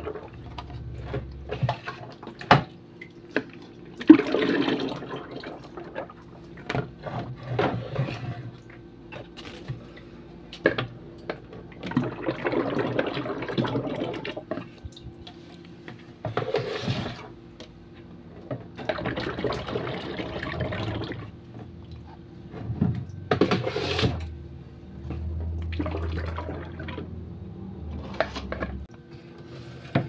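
Thick homemade liquid laundry soap being poured into a large plastic bottle, splashing in spells of a second or more, with sharp knocks and clicks between the pours.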